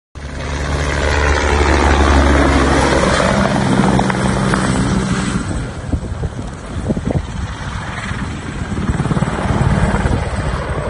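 Helicopter flying overhead: steady low rotor and engine sound with fast blade chopping, starting abruptly at the beginning, with a sweeping, phasing shimmer in the first few seconds as it moves.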